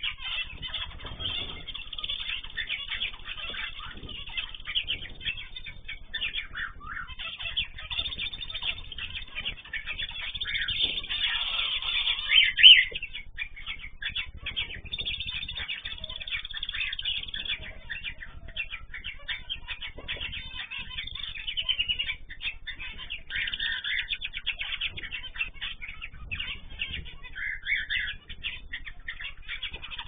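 A mixed aviary of cockatiels, zebra finches and canaries chattering and chirping continuously, many small birds calling over one another. Louder calls stand out about twelve seconds in and again in the last third.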